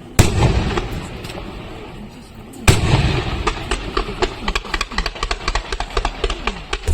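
Fireworks: two loud bangs of aerial shells about two and a half seconds apart, each trailing off, followed by a rapid run of sharp cracks and pops, several a second.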